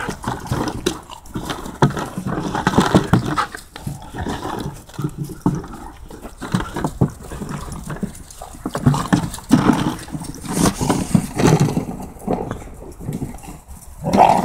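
A group of puppies playing rough together, with dog play noises, growls and whines, coming in irregular bursts, mixed with scuffling and knocks as they tussle over a plastic toy.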